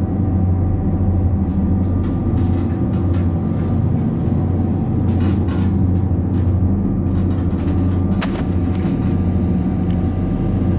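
Steady low drone of a boat's engines running, heard from inside a cabin, with a few faint clicks.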